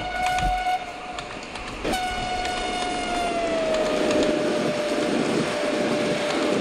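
Train horn blowing twice: a short blast, then about two seconds in a long one whose pitch falls partway through, over the rising rumble of a running train.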